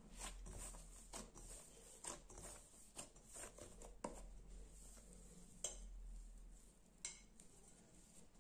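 Soft biscuit dough being kneaded by hand in a glass bowl: faint, irregular squishing and light knocks against the glass, with a few sharper clinks about four, five and a half and seven seconds in.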